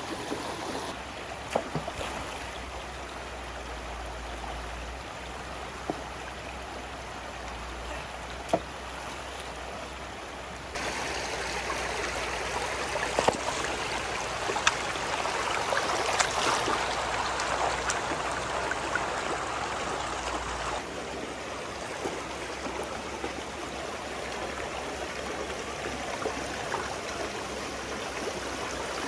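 Shallow stream water rushing and gurgling over rocks and through a plastic mesh net, a steady rush that gets louder for about ten seconds in the middle. A few brief sharp clicks stand out above it.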